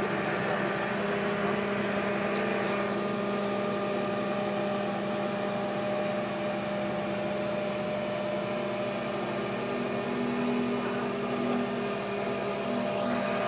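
Grove all-terrain mobile crane's diesel engine running steadily as it holds a suspended power transformer.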